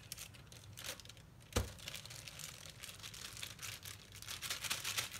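Plastic wrapping crinkling and rustling as store-bought pie crust dough is handled in its plastic sleeve, with a single sharp knock about one and a half seconds in.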